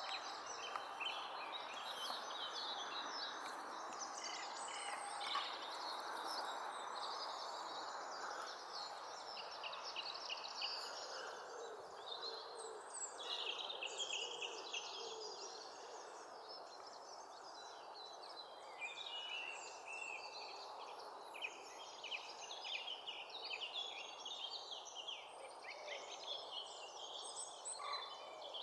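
Small birds chattering and calling in quick, dense series throughout, over a steady background hiss.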